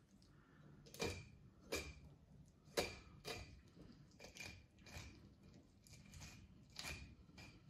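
Filleting knife cutting along a codling's backbone: faint, irregular clicks and light scrapes as the blade runs over the bones.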